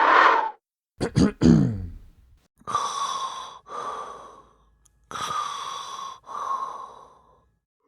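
A man's breathing sound effects: a short grunt about a second in, then heavy breaths in pairs, a louder breath followed by a softer one, repeated twice.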